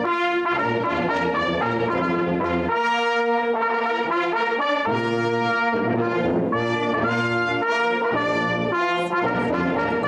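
Brass band of hunting-horn players, with tuba, French horns and trumpets, playing together in chords. The held notes change every second or so at a steady loudness.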